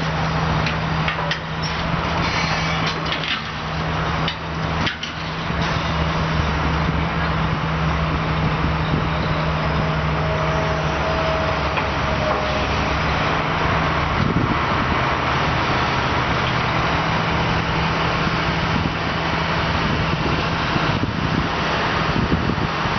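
Heavy diesel engine running steadily, its pitch shifting a little about two-thirds of the way through, with a few knocks in the first seconds.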